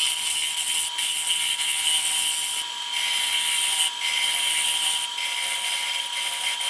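Bowl gouge cutting the inside of a very hard, dried pecan bowl spinning on a wood lathe: a steady hissing shear, broken by several short gaps as the tool lifts between passes. A thin steady whine runs underneath.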